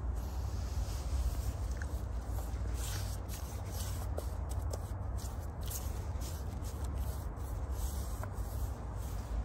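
Steady low rumble with scattered light scuffs and rustles throughout.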